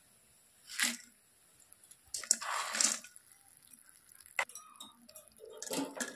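Freshly fried boondi being dropped from a wire skimmer into sugar syrup in a steel pan: a few short spells of wet clinking and splashing, the longest a couple of seconds in, with a sharp metal click past the middle.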